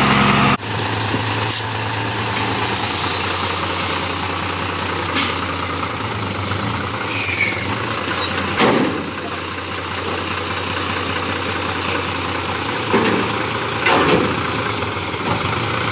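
Diesel engine of heavy earthmoving machinery running steadily, with a few short clunks.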